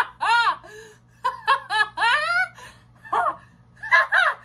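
A woman laughing loudly in several high-pitched bouts with short breaks between them.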